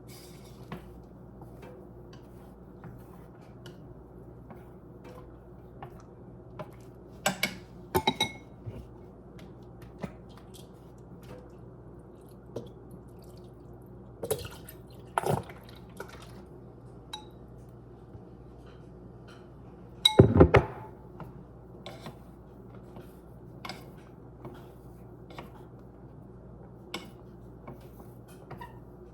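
Kitchen dishes and utensils clinking and knocking now and then over a steady low hum, with the loudest clatter about two-thirds of the way through.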